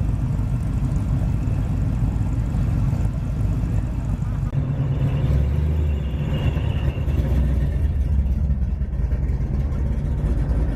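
Engines of cars, including a classic American pickup truck, driving slowly past in a cruise line: a steady low rumble that grows heavier about halfway through as the next cars come by.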